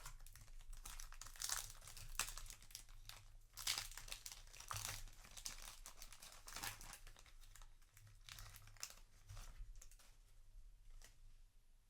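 Foil booster-pack wrapper crinkling and trading cards rustling as they are handled, in irregular bursts, louder in the first half and fading towards the end.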